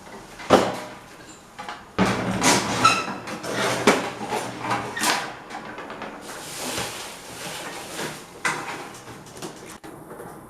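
Irregular knocks and clatter of the parts of an old standing electric fan being handled and taken apart, with a stretch of scraping about six seconds in.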